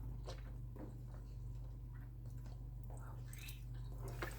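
A person chewing kholodets (jellied meat): soft, scattered wet mouth clicks over a low steady hum.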